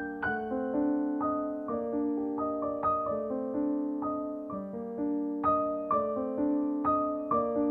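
Background piano music: a gentle melody of struck notes, roughly two a second, each ringing and fading before the next.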